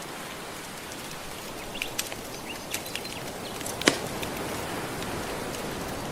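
Steady wash of gentle ocean waves with a wood fire crackling over it: a few scattered sharp pops, the loudest about four seconds in.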